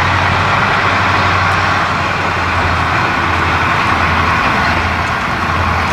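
Diesel railcar engine running steadily with a low drone as the train moves slowly.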